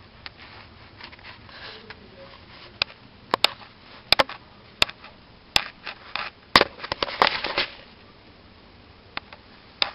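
Handling noise from a webcam being moved around: a string of sharp clicks and knocks, thickest in the middle, with a short rustle, then two more clicks near the end.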